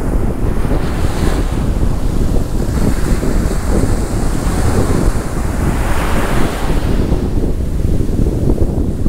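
Wind buffeting the microphone with a steady low rumble, over waves washing onto a sandy beach; the hiss of the surf swells from about three seconds in and fades again near seven seconds.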